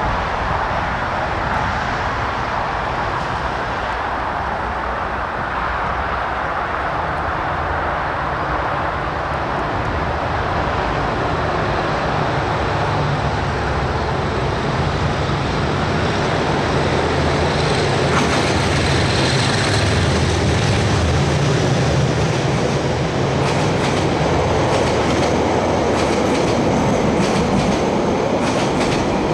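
Two DJ class diesel-electric locomotives with Caterpillar engines come out of a tunnel and pass close by hauling carriages: a low diesel engine drone that builds steadily, a brief high whine about two-thirds of the way through, then wheels clicking over the rails near the end as the carriages go by.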